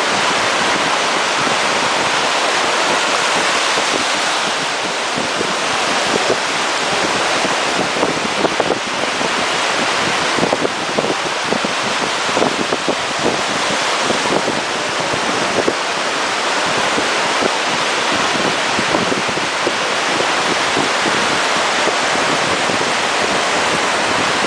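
Wind buffeting the microphone over rushing, splashing sea water, as on a moving jet ski, with a run of sharp knocks and slaps in the middle.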